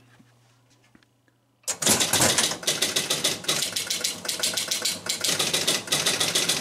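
Rapid clacking of the relays, stepper units and score reels in a 1976 Gottlieb Target Alpha electromechanical pinball machine running its game-start reset sequence. It starts suddenly about a second and a half in, after a quiet moment, and carries on as a dense run of many clicks a second.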